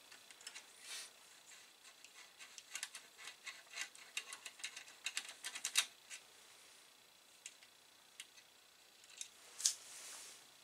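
Quick run of small metallic clicks and ticks as connector screws are turned out of the rear edge of an Amiga 1200 motherboard with a hand driver, thickest from about two to six seconds in. A sharper click comes near the end as a screw is set down on the workbench.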